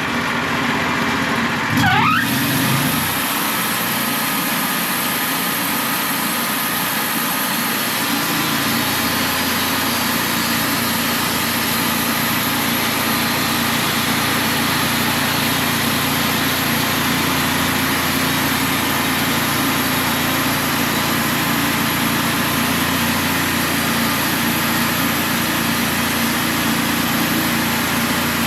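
An engine running steadily, with a brief rising whine about two seconds in.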